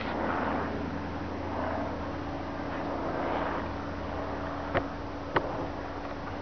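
Low, steady, distant drone of an approaching Class 66 diesel locomotive, with two sharp clicks about half a second apart near the end.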